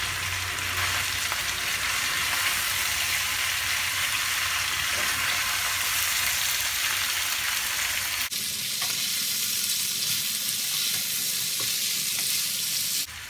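Chicken pieces and thickly cut onion sizzling in hot oil in a frying pan while being stirred with a spatula: a steady hiss, which changes abruptly about eight seconds in.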